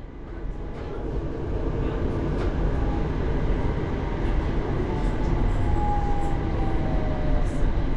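Utsunomiya Light Line tram running, heard from inside the car, a steady rumble as it slows into a stop. A whine falls in pitch from about five seconds in.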